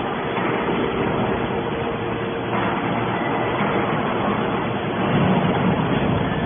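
Hydraulic scrap-metal baler running as it compresses stainless steel scrap: a steady mechanical noise with a faint hum, growing louder about five seconds in.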